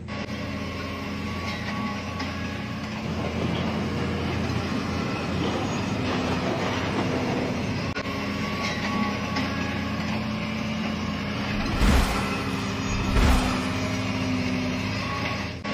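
Diesel engine of heavy construction machinery running steadily, with two low thumps near the end about a second apart.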